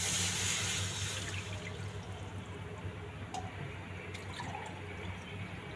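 Milk poured from a glass into a metal kadhai, splashing loudest in the first second or so and then tapering off. A few light clicks follow near the middle.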